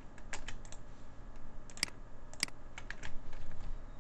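Typing on a computer keyboard: irregular key clicks, with two sharper clicks a little before the middle.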